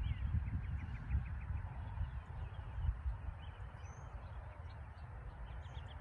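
Small songbirds calling: several quick series of short, high chirps, one near the start and more in the second half, over a steady low rumble.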